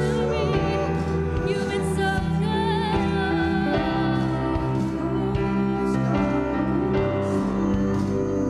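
Live worship band playing a slow song: sustained held chords, with a singing voice wavering over them.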